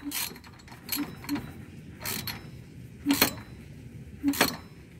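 Rubber V-belt being worked around the pulleys under a riding mower, with a few irregular scrapes and knocks of belt and hand against the metal pulleys and frame.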